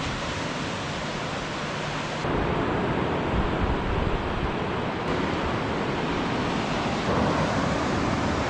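Steady wash of surf with wind noise, growing louder about two seconds in.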